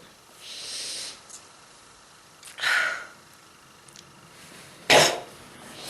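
A person with strong bronchitis breathing in and coughing: a short harsh cough about two and a half seconds in, then a louder, sharper cough about five seconds in.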